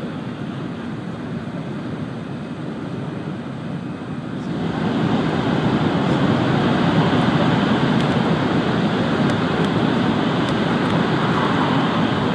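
Shinkansen bullet train running at speed, heard from inside the passenger cabin as a steady rushing rumble. About four and a half seconds in it grows louder and fuller and stays that way.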